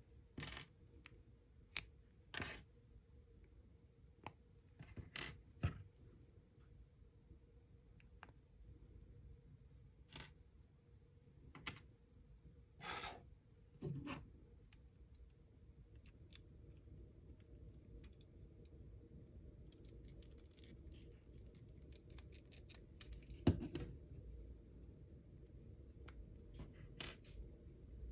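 Small LEGO plastic pieces clicking as they are pried apart and set down on a wooden table: scattered sharp clicks and a few short scrapes at irregular intervals.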